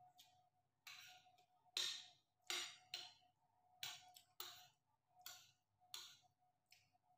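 A person eating with a spoon: a regular run of short chewing sounds, about one every two-thirds of a second, over a faint steady hum.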